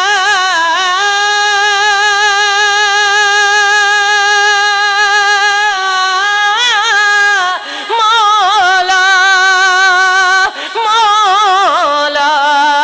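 A man's solo voice singing a naat unaccompanied, drawing out long held notes with wavering, melismatic ornaments. The line breaks off briefly twice, about eight and ten and a half seconds in.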